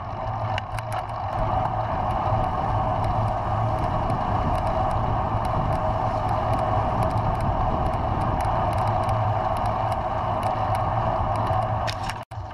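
Steady ride noise from a camera mounted on a bicycle's handlebars: wind and tyres rolling on a rough, poorly surfaced cycle path, with scattered small knocks from bumps. The sound cuts out briefly near the end.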